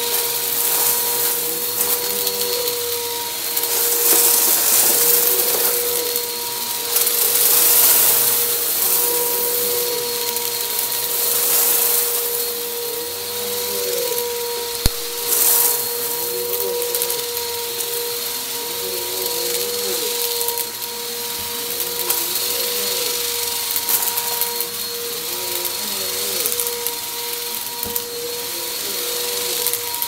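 Bissell Helix Turbo upright vacuum running with a steady motor whine, sucking up crunchy debris that crackles and rattles through it in repeated surges. There is one sharp click about halfway.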